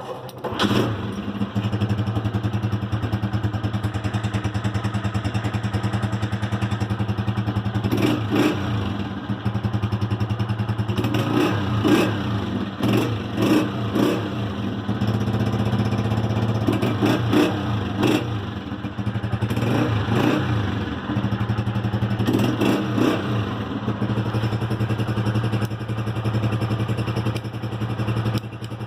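Unique UD 125cc motorcycle's four-stroke single-cylinder engine idling steadily, blipped to a higher pitch and let fall back several times through the middle, in clusters of quick revs.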